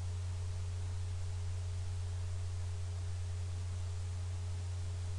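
Steady low electrical hum, one unchanging deep tone, with nothing else heard over it.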